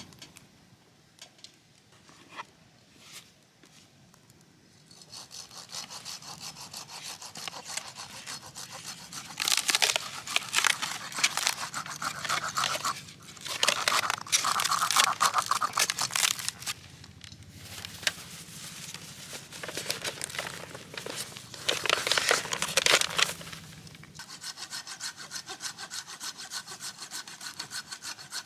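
Saw cutting through firewood in rapid rasping strokes. It starts about five seconds in after a few faint clicks, is loudest in three bouts through the middle, and carries on more quietly near the end.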